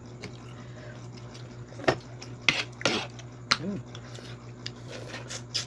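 A knife and oyster shells clicking and scraping against a cutting board and plates, with about four sharp clicks in the middle. A steady low hum runs underneath.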